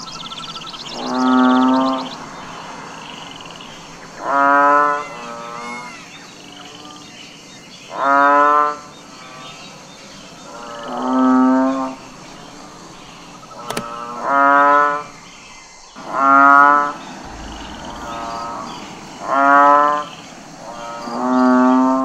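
Bull mooing over and over, one call about every two to three seconds, each call about a second long.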